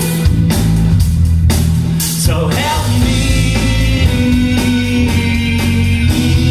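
Rock band playing live: guitar and bass chords over drum hits, with singing.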